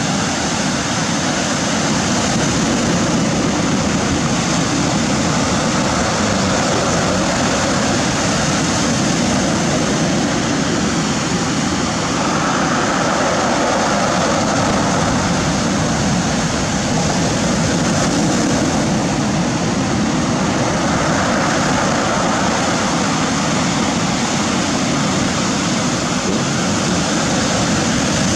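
Ocean surf breaking and washing over a pebble beach: a steady, loud rush of water that swells now and then as waves come in.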